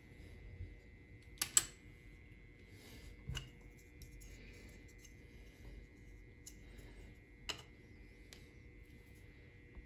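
Small plastic clicks and taps from an N scale model freight car's body and underframe being handled and set down on a countertop: a sharp double click about a second and a half in, then single clicks near three and a half and seven and a half seconds. A faint steady high whine sits underneath.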